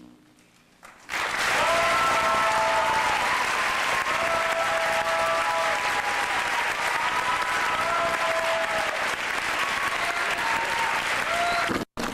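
Audience applauding and cheering, with voices calling out over the clapping. It starts about a second in and cuts off abruptly near the end.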